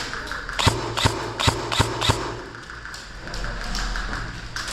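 Five quick shots from a DE Armory M906D airsoft rifle, sharp snapping clicks about a third of a second apart.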